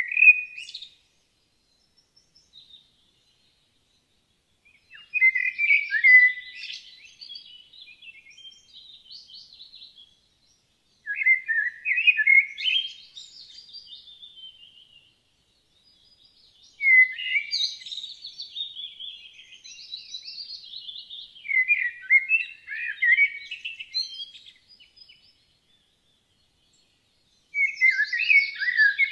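A songbird singing short warbling phrases of a few seconds each. The phrases repeat about every five to six seconds with quiet gaps between them.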